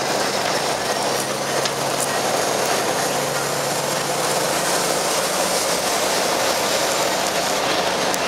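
Cab interior noise of a MAN TGA XXL truck on the move: its diesel engine running steadily under road and tyre noise.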